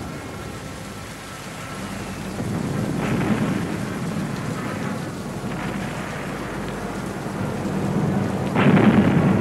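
Rumbling booms of distant explosions in a wartime soundscape: three swells about three, five and a half and nearly nine seconds in, the last the loudest, over a constant rushing noise.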